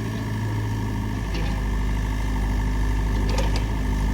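Mini excavator's diesel engine running, its low rumble getting louder about a second in as it takes load, with a few short sharp knocks about a second in and near the end.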